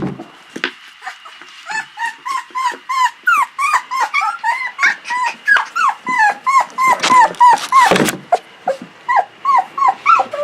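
A litter of five-and-a-half-week-old Aussiedoodle puppies whining and yipping: many short, high, arching cries, several a second and overlapping. About seven seconds in, a louder, rougher noise lasts for about a second.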